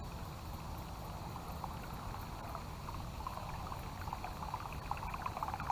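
Faint, steady outdoor background noise with a low rumble and scattered light ticks.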